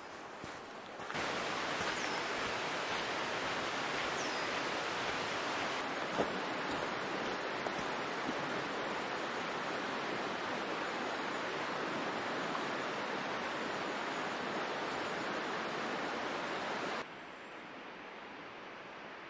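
Steady rush of flowing river water that cuts in about a second in and cuts off abruptly near the end.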